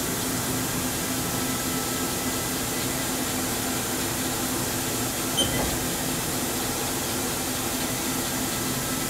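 2007 Haas Super MiniMill vertical machining center traversing its table along the X axis: a steady whir and hum from the axis drive and ballscrew, with a short chirp a little past halfway.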